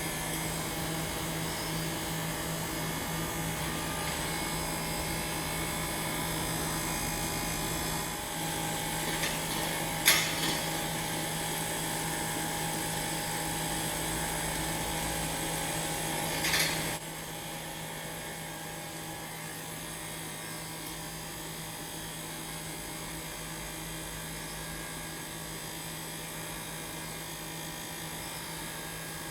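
A steady hum with a low tone and many high steady tones, broken by two short sharp knocks, about ten and seventeen seconds in; after the second knock the hum drops quieter.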